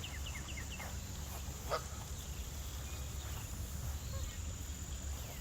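Goose calling once, a short honk about two seconds in. At the start a bird gives a quick run of falling chirps, and a steady high insect drone runs underneath.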